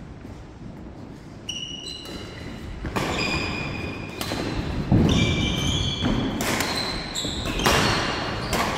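Badminton doubles rally: rackets striking the shuttlecock in a quick back-and-forth, sharp hits about a second apart, several followed by a brief ringing tone. Thuds of players' footsteps on the wooden floor, the heaviest about five seconds in.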